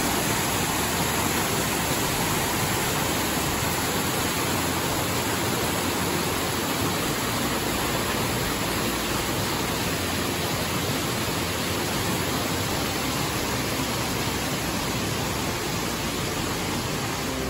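Rushing water of a mountain creek, a steady, even rush of noise without let-up.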